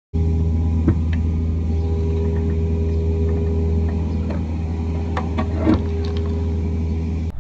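Excavator's diesel engine running steadily at close range as its grading bucket sweeps soil past, with a few brief scrapes or knocks, one about a second in and another near six seconds.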